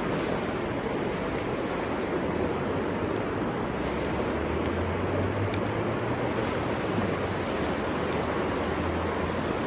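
A river flowing steadily, an even rushing water sound, with a few faint short high chirps.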